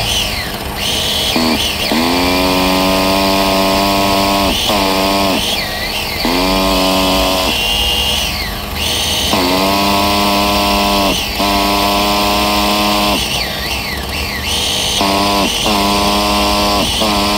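Electric starter box cranking a nitro RC car's glow engine in about six bursts of a few seconds each, each spinning up and winding down, with no sign of the engine catching. It is a failed start: the engine is not getting fuel, air or spark, and its glow plug turns out to give no spark.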